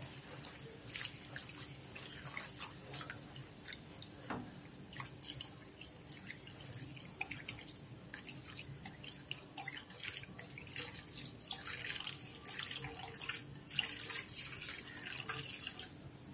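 Palm-jaggery syrup bubbling in a non-stick pan as a thin stream of coconut milk and rice-flour batter is poured in and stirred with a silicone spatula. The sound is faint, irregular popping, dripping and splashing.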